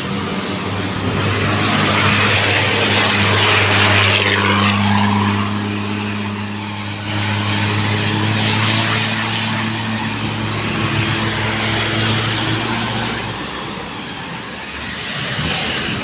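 Wind rushing over the microphone of a road bike riding at speed, with the steady hum of a motor vehicle's engine close by that fades away about four-fifths of the way through.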